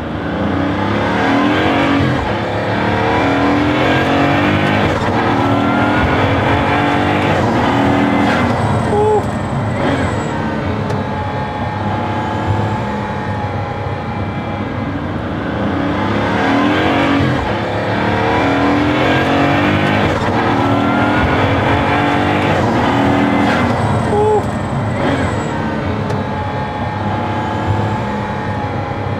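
Pagani Huayra BC's twin-turbo V12 heard from inside the cabin, accelerating hard through the gears. The engine note climbs, then drops at each shift of the single-clutch gearbox.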